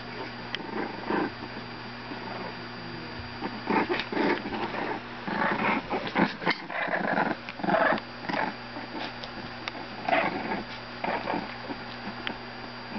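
Olde English Bulldogge puppies play-fighting, growling in short, irregular bursts that are busiest from about four to eight seconds in.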